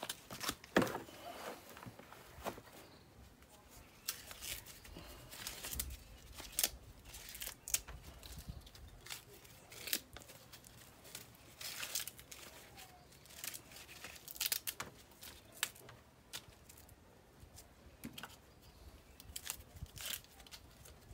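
Corn husks being torn off ears of corn by hand, in a run of irregular ripping and rustling sounds.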